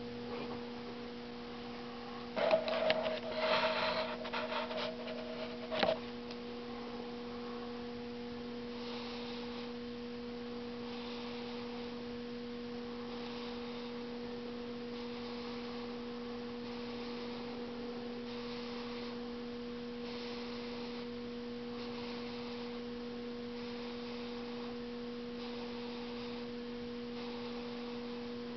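Steady electrical hum of two low, level tones, with a cluster of clicks and knocks about two to six seconds in.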